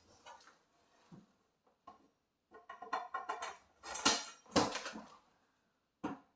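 Grow-tent frame poles and connectors clicking and knocking as they are handled and fitted together: a quick run of light clicks, then two louder knocks and one more near the end.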